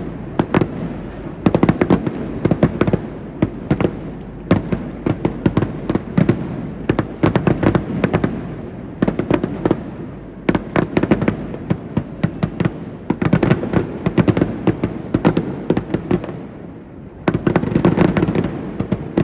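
Fireworks display: volleys of many rapid sharp crackling pops from bursting shells, coming in dense clusters with brief lulls between them.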